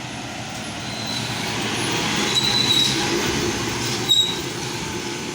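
Road vehicle passing close, its rushing noise swelling to a peak about two to three seconds in and then easing off, with brief high squeaks and a short sharp knock about four seconds in.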